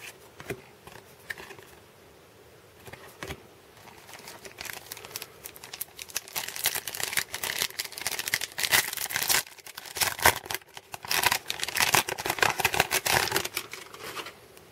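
Light clicks of trading cards being handled, then the foil wrapper of a 1992 Upper Deck baseball card pack crinkling and tearing as it is opened. The crinkling comes in dense bursts from about four seconds in until near the end.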